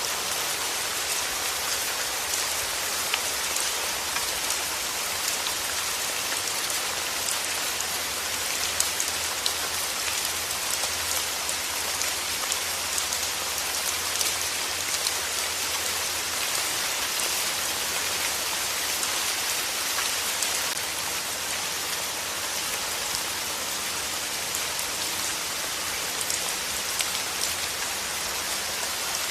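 Steady rain falling, a dense even hiss of drops with scattered sharper drop ticks.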